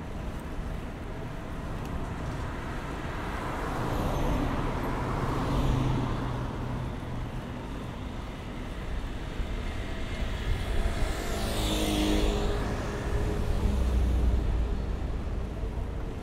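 Road traffic: a steady hum of cars with two vehicles passing by, one about four to six seconds in and a closer one about twelve seconds in.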